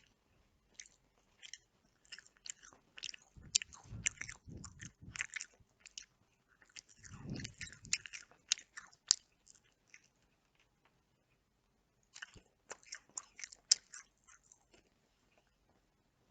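Close-miked chewing of chicken: wet mouth clicks and smacks in dense clusters, with a couple of fuller, deeper stretches and a quiet gap of about two seconds past the middle.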